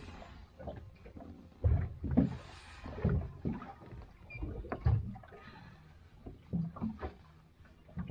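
Small waves slapping irregularly against the hull of a small boat, a series of dull low knocks at uneven intervals with a short hiss of water about two seconds in.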